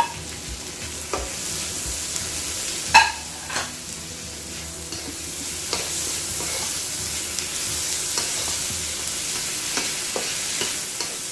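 Sliced onions, chopped tomatoes and green chillies sizzling in hot oil in a kadai while a slotted spatula stirs them, with a steady hiss and a few sharp knocks of the spatula against the pan, the loudest about three seconds in.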